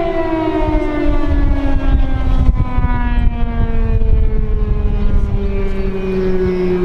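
Outdoor warning siren sounding one long, steady tone whose pitch slowly falls, as a siren does when it winds down. It is taken for a tsunami siren, though it may be a fire station test.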